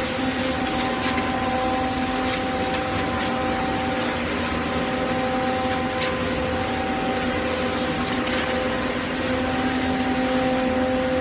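TM4500 vacuum membrane press machine running: a steady whir with a constant pitched hum, and a few faint clicks.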